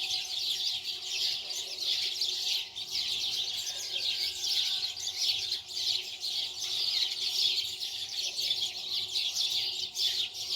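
Small birds chirping continuously, many short overlapping chirps in a dense chatter.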